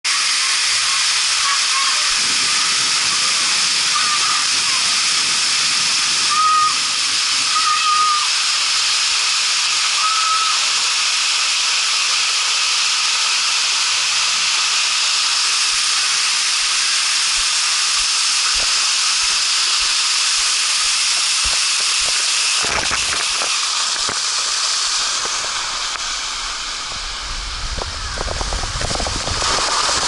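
Steady hiss of an artificial waterfall pouring and splashing onto a water slide's start platform, with a few short high chirps in the first ten seconds. Near the end the hiss fades and a low rumble of rushing water and wind grows as the rider goes down the slide.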